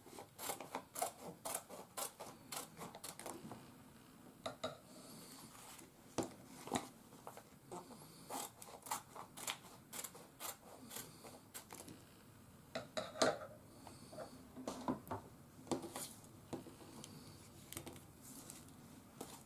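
Scissors snipping through a plastic retort pouch of warmed meatballs to open it, with the packaging crinkling as it is handled: a long run of sharp, irregular clicks and rustles.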